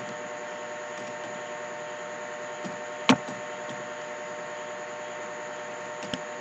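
Steady electrical hiss and hum from the recording setup, with a few faint clicks and one sharp click about three seconds in, from keys being pressed as digits are typed.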